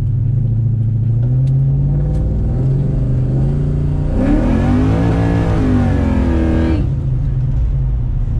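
Holden VN Commodore's LS1 V8 engine running, then accelerating hard from about four seconds in, its note rising and then falling away before settling back to a low drone near the end.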